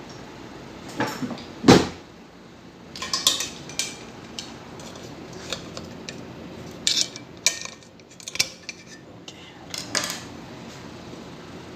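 Metal parts of a cut-open refrigerator compressor clinking and clanking as they are handled: a series of sharp, irregular knocks and clinks, the loudest about two seconds in.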